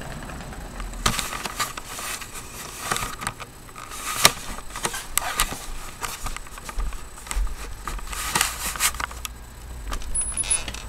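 Handling noise from a handheld camera being carried and moved: irregular knocks, clicks and rubbing, with a few sharper bumps.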